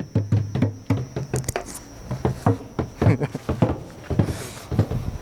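Several hand drums beaten together in a loose, uneven rhythm of a few strokes a second.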